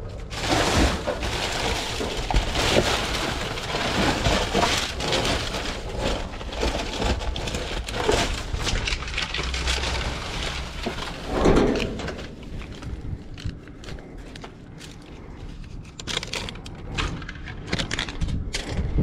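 Rummaging through trash in a dumpster: crinkling, crunching and clattering of debris, busy and loud at first, then thinning to scattered knocks and rustles after about twelve seconds.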